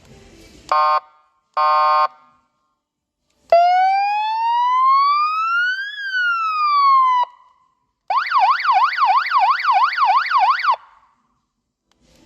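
A 12 V electronic siren loudspeaker playing its three built-in effects in turn: two short buzzy horn blasts, then one long siren wail that rises and falls, then a fast yelping warble of about four cycles a second.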